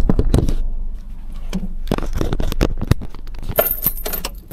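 A quick series of sharp clicks, knocks and metallic clinks, like keys jangling and small hard objects being handled.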